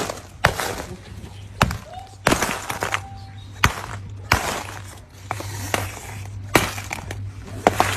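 Chunks of natural clay and chalk being broken with a hammer: about nine sharp cracking strikes at an uneven pace of roughly one a second, each followed by a short crumbling crackle, over a steady low hum.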